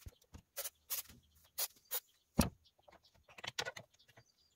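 Irregular clicks and knocks of a hand tool and parts working at the bolted flywheel cover of a JLO Rockwell 292 two-stroke engine. The heaviest knock comes about two and a half seconds in.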